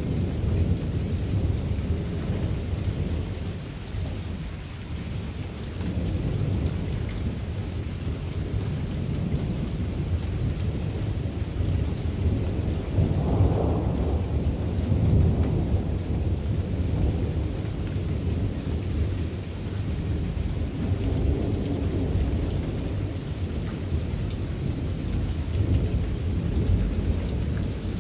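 Thunder rumbling almost without pause, a deep drawn-out roll that swells and fades and peaks about halfway through, over steady rain with scattered drops ticking.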